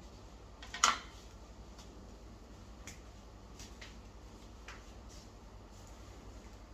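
A sharp click about a second in, then a few faint clicks and light handling noises, over a low steady hum.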